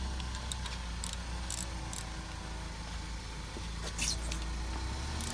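Car engine idling with a low, steady rumble; the engine has a misfire. Scattered light clicks and ticks sound over it.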